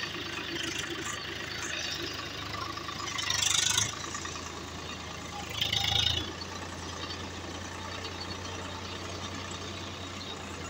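Mahindra Arjun tractor's diesel engine running steadily while driving, heard from the driver's seat. Two brief, louder rushes of noise come about three and a half and six seconds in.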